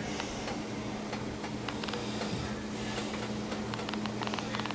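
Water simmering in a lidded saucepan on an electric stovetop, with a steady low hum and several short runs of rapid ticking.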